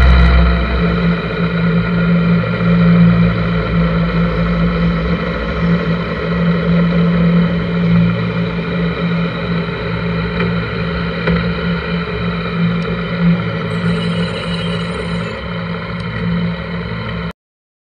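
1983 Honda GL1100 Gold Wing's flat-four engine running steadily at road speed, with road and wind noise, until the sound cuts off suddenly near the end.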